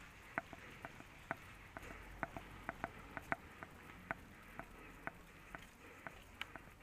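Distant airsoft guns firing single shots: sharp, faint pops at irregular spacing, about two a second, over a low background hiss.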